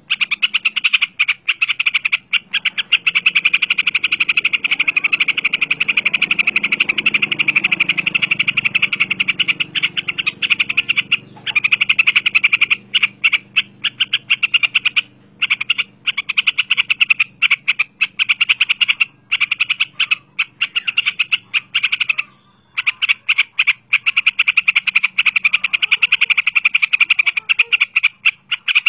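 Yellow-vented bulbul (trucukan) giving a long, rapid chattering run of short notes, many a second, broken only by brief pauses.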